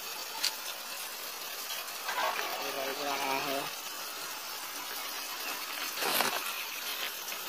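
A person's voice, faint and brief, a little past the middle, over a steady hiss. A short click comes near the start and a brief rustle about six seconds in.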